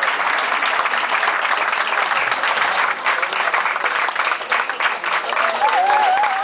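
Audience applauding, a steady dense clapping, with a high wavering cheer from the crowd starting near the end.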